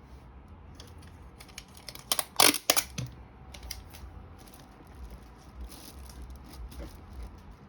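Crinkling and sharp crackles of paper and packaging being handled while items are pushed into a gift basket, loudest in a short burst about two and a half seconds in, with scattered lighter clicks afterwards.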